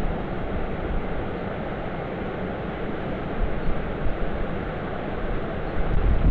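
Steady rushing of river water, with wind buffeting the microphone and a stronger gust of low rumble near the end.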